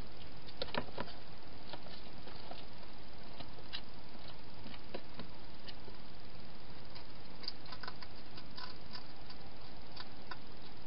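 Hedgehog eating from a bowl inside a plastic feeding box: irregular small clicks and crunches of chewing, over a steady hiss.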